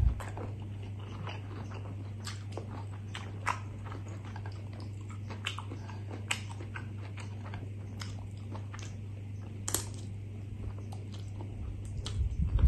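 Close-miked mouth sounds of a man chewing a mouthful of rice and curry, with scattered soft smacks and clicks. A steady low hum runs underneath, and a short cluster of louder smacking near the end comes as he licks his fingers.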